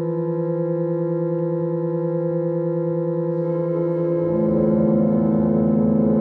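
A roughly 100-year-old Spaethe reed pump organ (harmonium) holding a sustained drone chord of several steady notes in a reverberant hall. A little past four seconds in, a lower note joins and the sound grows louder.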